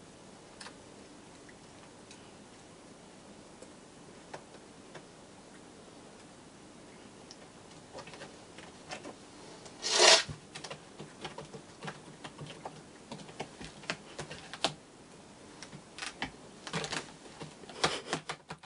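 Cats' claws clicking and scraping on a cat tower's platforms and sisal post: a few faint ticks at first, a loud short scrape about halfway through, then a busy run of irregular clicks and scratches. Near the end the scraping clusters as the Ragdoll scrabbles for grip, hanging off the edge of its platform.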